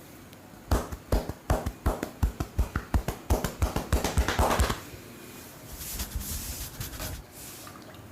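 A barber's hands tapping rapidly on the head in a massage, about five sharp strikes a second and speeding up. Near the end, a softer rustling rub of hands on oiled skin and hair.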